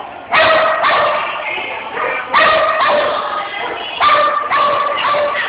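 A dog barking repeatedly: loud, high-pitched barks, many coming in quick pairs.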